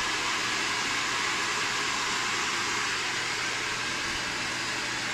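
Hand-held hair dryer running steadily on one setting, a constant airy rush with a faint motor hum beneath it.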